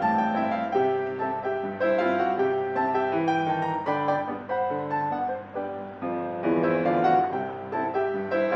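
Background piano music: a lively melody of quick, separate notes over a steady accompaniment.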